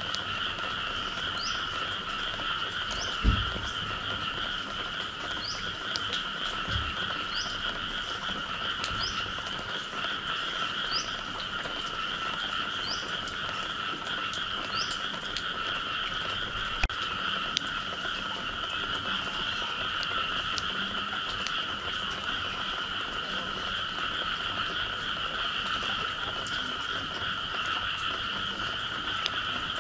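A dense frog chorus calling steadily after rain, a continuous trill at two pitches. A short rising chirp repeats about once a second through the first half, and a single low thump comes about three seconds in.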